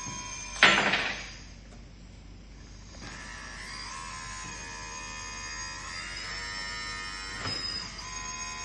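Small electric motor of a model hydraulic excavator whining steadily, its pitch shifting as it works. A sharp clank comes just over half a second in.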